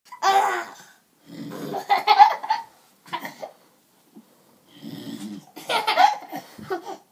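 A man snoring twice in low, rough snores. Each snore is answered by a baby's high-pitched bursts of laughter, and the laughter is the loudest sound.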